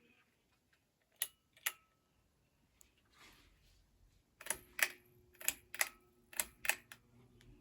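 Sharp clicks of the Hampton Bay Landmark Plus ceiling fan's switch: two about a second in, then a quick run of clicks about halfway through. As the run begins, the fan's motor starts with a faint steady hum.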